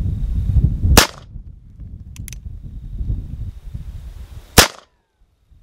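Two pistol shots from a Cimarron 1851 Navy Richards-Mason conversion revolver in .38 Special, about a second in and again some three and a half seconds later. Between them comes a short sharp click as the single-action hammer is cocked. Wind rumbles on the microphone throughout.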